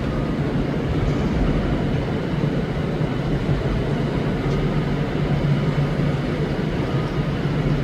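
ScotRail electric multiple unit pulling out of the station: a steady low rumble with a faint steady whine.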